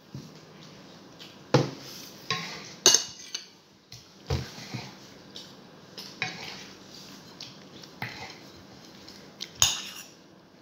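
Fork and utensils clinking and scraping against a ceramic plate while eating, with a sharp clink every second or two.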